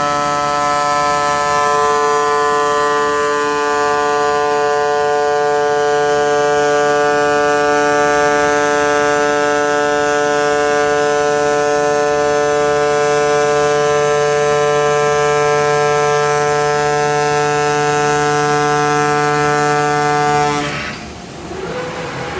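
CNC cutting machine running on 3.5 mm asbestos sheet, a steady pitched buzz that cuts off suddenly near the end, leaving a soft hiss.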